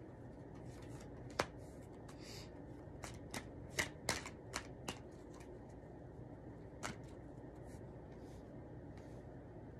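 Tarot cards being drawn from the deck and laid down on a felt table mat: light, sharp card clicks and snaps, one about a second and a half in, a quick cluster between about three and five seconds, and one more near seven seconds.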